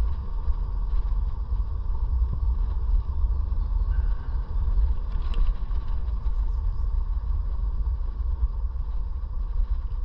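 Riding an iScooter E9D electric scooter: a steady low rumble of wind and road noise, with a steady whine.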